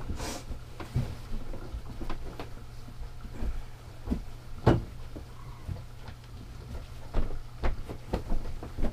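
Knocks and bumps of a Home Reserve armchair's upholstered panels being handled and fitted together, one sharper knock about halfway through and a quick run of them near the end, over a steady low hum.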